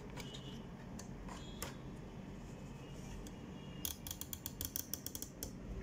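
Small plastic and metal parts of an Epson LQ-310 dot-matrix printer's carriage mechanism clicking as they are fitted by hand: a few light clicks, then a quick run of about a dozen clicks about four seconds in.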